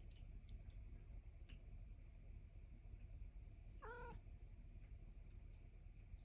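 A domestic cat gives one brief, wavering meow about two-thirds of the way through, over near-silent room tone with a few faint clicks.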